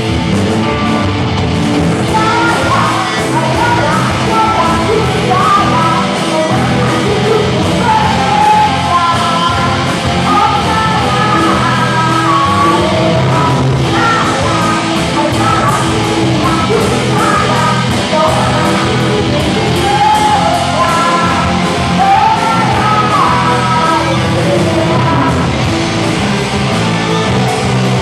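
Live rock band playing a song, with a vocalist singing over the band. The singing comes in about two seconds in and drops out shortly before the end, leaving the band playing on.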